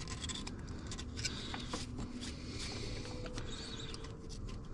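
Faint light scratching and scattered small clicks of hand work at the engine, as the EGR valve's mounting surface is readied for the new gasket.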